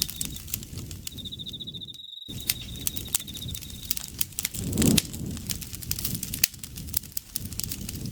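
Campfire crackling with frequent sharp pops over a low rumble of burning, swelling briefly near five seconds. An insect trills in a high, steadily pulsing note that fades out shortly after the start, returns about a second in and stops around four seconds. The sound cuts out completely for a fraction of a second about two seconds in.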